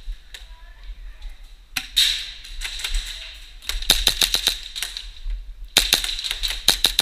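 Airsoft guns firing rapid strings of sharp cracks: a single shot just under two seconds in, then quick bursts around four seconds and again from about six seconds on.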